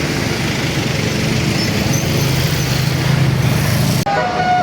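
Bus passing close: low engine rumble and road noise that build to their loudest about three seconds in. Near the end the sound cuts off suddenly and a telolet multi-tone bus horn starts playing its stepped tune.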